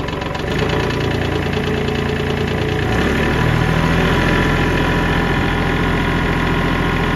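Kubota L3301 tractor's three-cylinder diesel engine running steadily at idle, its speed shifting about half a second in and again around three seconds in. It is running again after a clogged fuel line was cleared and the fuel system bled of air.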